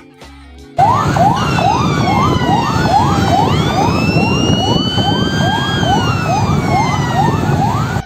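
Emergency vehicle siren starting about a second in. A fast yelp of roughly two rising sweeps a second runs over a slower wailing tone that glides down, jumps up, then falls, with a loud rushing noise underneath.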